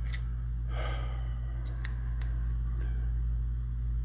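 Steady low electrical hum with a few sharp, small clicks of metal gun parts being handled, and a short breath about a second in.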